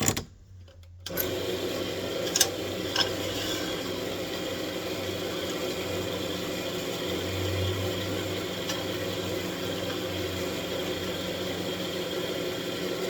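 A wood lathe switched on about a second in, its motor then running steadily with a low hum, and a couple of sharp ticks shortly after it starts.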